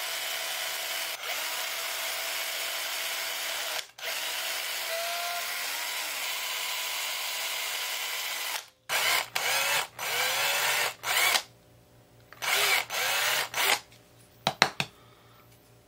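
Cordless drill boring small holes into a hand-held wooden lure body for the hook hangers and tie-on eye. It runs steadily for about nine seconds with two brief pauses, then in several short bursts of under a second each, spinning up and down.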